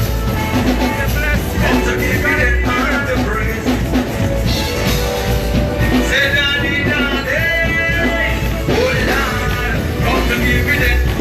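Live band playing a gospel praise song, with a steady heavy bass and melody lines over it and no sung words.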